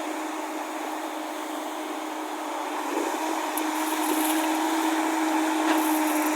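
JCB excavator's diesel engine running steadily, then getting louder and a little higher about halfway through as it works under load, with a couple of brief scraping clatters.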